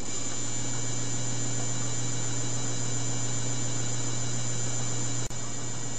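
Littleton ceiling fan's motor running at high speed just after being switched on by remote, giving a steady electrical hum with a thin whine above it. The sound briefly cuts out a little past five seconds in.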